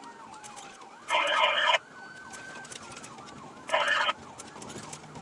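Police siren sounding in a rapid repeating yelp over a slower falling wail. Two short, loud bursts of harsh hiss cut through it, one about a second in and a shorter one near the end.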